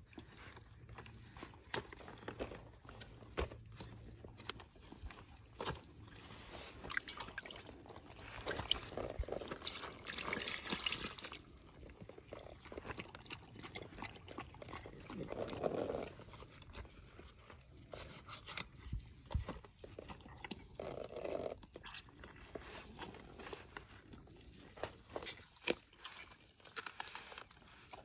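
A knife and hands cutting and tearing apart a fire-roasted carcass on banana leaves: scattered crackles, crunches and wet tearing sounds, denser about a third of the way in.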